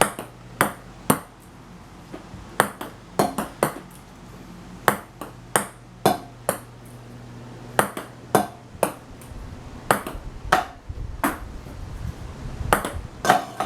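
Ping pong ball bouncing on hard surfaces: sharp clicks, often in quick pairs or short runs of a few bounces, repeated throughout, with a low steady hum underneath.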